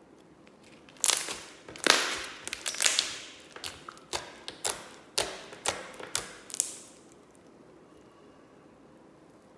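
Pink foam-bead slime being squeezed and pressed by hand, giving a string of sharp clicks and pops, about a dozen over some six seconds, that stop near the end.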